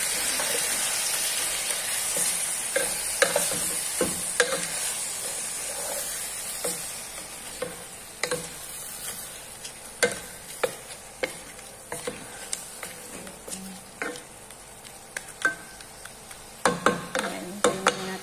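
Shrimp and aromatics sizzling in a metal pot while being stirred with a wooden spatula, which knocks against the pot. The sizzle fades over the first several seconds. Scattered knocks continue, with a quick cluster near the end.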